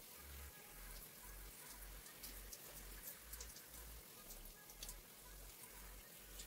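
Faint water spattering and dripping as a clay mask is rinsed out of hair at a sink, with scattered small drip ticks over a low hum.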